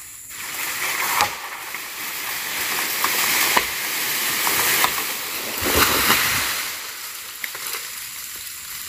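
A tree falling after being cut with a chainsaw. A swelling rush of leaves and breaking branches with several sharp cracks builds to heavy thuds about six seconds in as it comes down, then fades.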